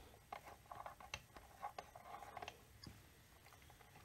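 Faint clicks and light metal taps from handling an oil seal puller tool as it is set over a chainsaw crankshaft, bunched in the first two and a half seconds.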